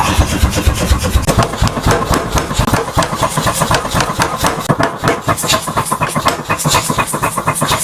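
Mechanical power hammer forging the hot steel of an excavator claw hook, striking in a fast, even run of blows.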